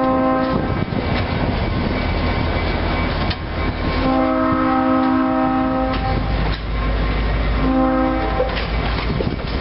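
Diesel locomotive air horn sounding a chord in blasts: one ends just after the start, a long one comes about four seconds in and a short one near eight seconds, the long-long-short-long grade-crossing pattern, from the EMD GP30 hauling the train. Underneath, passenger coaches roll past with a steady low rumble and clicks of wheels over rail joints.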